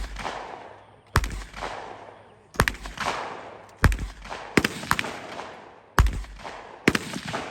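Gunshots in a steady series of aimed shots, about six, roughly a second and a quarter apart, each followed by a long rolling echo.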